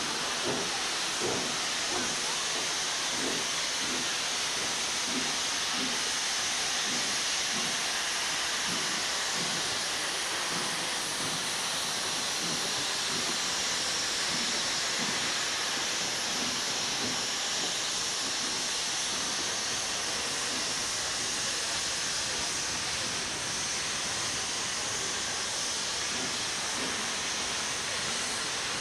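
Steam locomotive standing with steam hissing steadily and without a break.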